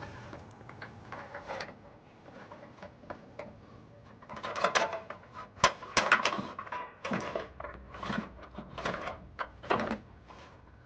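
Trailer wiring T-connector being taped to a pull wire and drawn through the bumper beam frame: a run of six or so short scraping, rustling bursts, starting a few seconds in and stopping shortly before the end.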